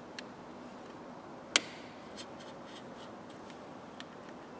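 A blade cutting and prying at the seam of a Renault Megane 2 plastic keycard: a few faint ticks and clicks of the plastic, with one sharper click about one and a half seconds in.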